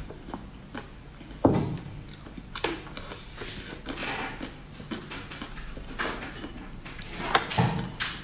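Glossy purple grape-shaped dessert shells being broken open by hand: a few sharp cracks and crinkles, the loudest about a second and a half in, another near the end.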